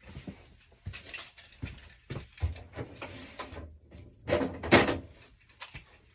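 Tools being handled and shifted about: irregular knocks, clatter and scraping, with the loudest rattling burst about four and a half seconds in.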